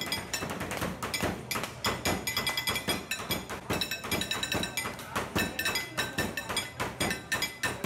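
Quick, even tapping and clinking on metal with a ringing tone, about four to five strikes a second.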